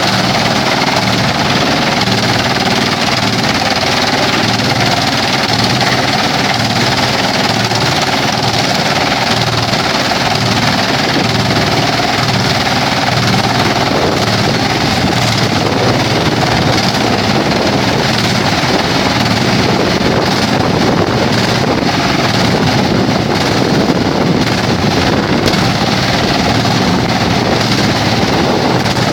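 Vantec forestry wood chipper running steadily and loudly, a continuous mechanical noise with an engine-like drone underneath.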